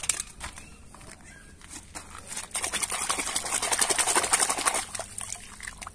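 A hand splashing and swishing a plastic toy truck about in a bucket of muddy water. The sloshing grows louder about two and a half seconds in and eases near the end.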